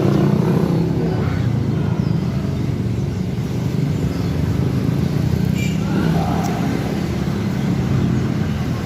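Steady low rumble of a running engine, unchanging throughout, with faint voices over it.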